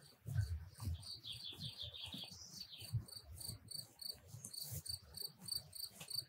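Crickets chirping faintly in a steady rhythm, about two to three chirps a second, with a bird's brief twittering about a second in and faint low thumps underneath.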